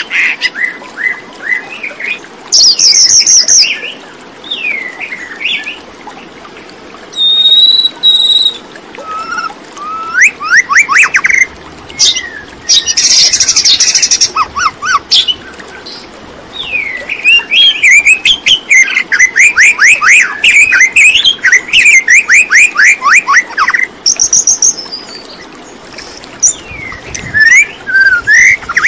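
Birdsong: a varied run of chirps, short whistles and fast trills, with a long stretch of rapid trilling notes in the second half.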